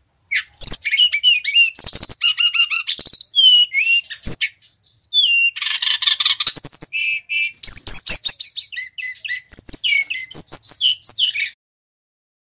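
Male Brown-chested Jungle Flycatcher singing a loud, fast, varied song of whistled notes, slurred phrases and quick trills, almost without pause, stopping about a second before the end.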